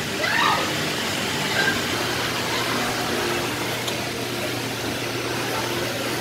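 Steady indoor background hum and hiss, like a mall's ventilation, with a brief child's voice just after the start.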